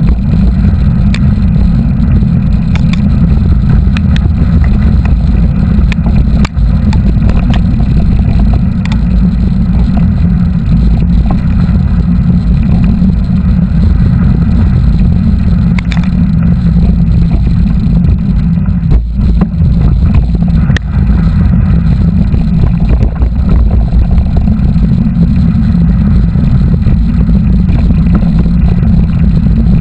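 Loud, steady wind buffeting the microphone of a camera riding along on a mountain bike, with scattered small knocks and rattles from the bike over the trail.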